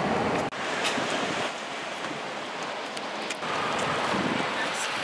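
Steady rushing outdoor background noise, an even hiss with no single clear source, typical of wind and road traffic around an open lot. The sound cuts out briefly about half a second in.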